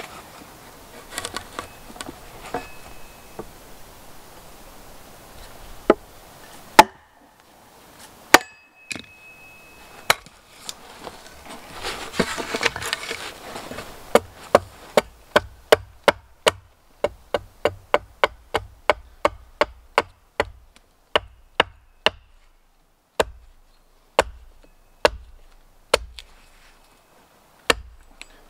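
Axe chopping chips from the end of a peeled wooden pole: a few separate blows in the first half, then a steady run of sharp chops about two a second from about halfway through.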